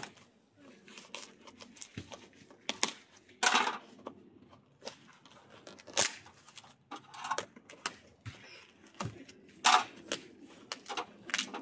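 A cardboard box being worked open by hand: irregular clicks and knocks on the cardboard, with a few short tearing and scraping rustles of cardboard and packaging.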